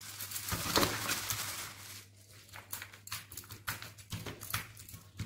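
Raw mutton pieces being tipped onto a stainless-steel plate: a dense patter of pieces landing for about two seconds, then scattered clicks and soft slaps as a hand moves the meat around on the metal.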